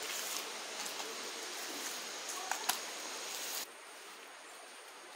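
Hands smearing wet ground rice-and-spice paste over colocasia (taro) leaves: a soft, steady squishing and rustling with a few light clicks, dropping quieter about three and a half seconds in.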